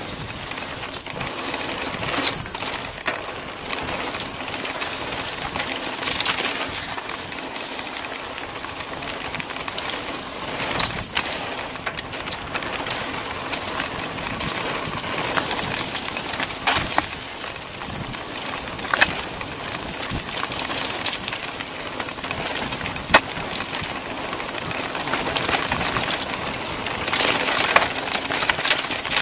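Mountain bike riding down a dirt forest trail: a steady rush of tyre and wind noise with frequent clicks and knocks as the bike rattles over the ground, busier and louder near the end.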